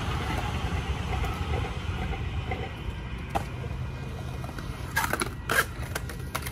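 Skateboard wheels rolling on a concrete bowl with a steady low rumble, then two loud, sharp clacks of the board striking the concrete about five seconds in.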